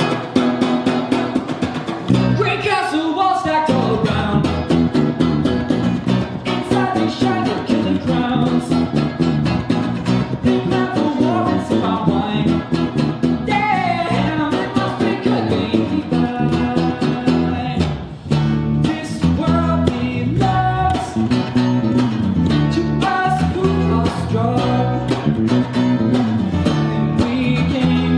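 Live rock band playing with guitars, bass and steady drums.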